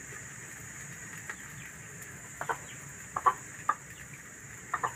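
A chicken clucking in several short, spaced-out calls, more of them in the second half.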